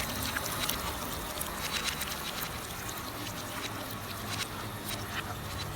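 Water trickling from a leaking water tank, with many small irregular drips and splashes over a faint steady low hum.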